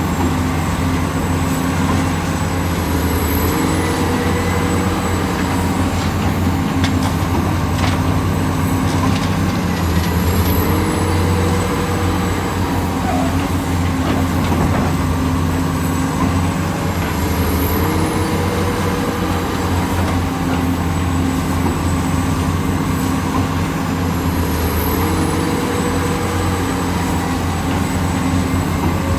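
Heavy diesel machinery engine running steadily under load. A short rising whine comes back four times, about every seven seconds, and a few faint knocks fall in the first third.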